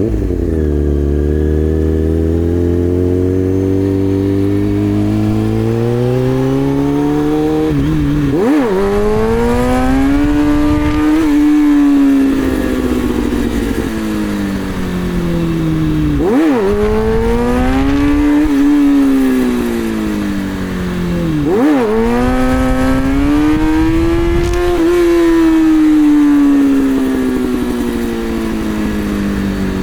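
2003 Kawasaki ZX-636 inline-four sport bike engine revving through long pulls in first gear, its pitch climbing and falling over several seconds at a time, with three sudden brief dips in pitch. The bike is held in first gear because second gear is out with a transmission/shift fork problem.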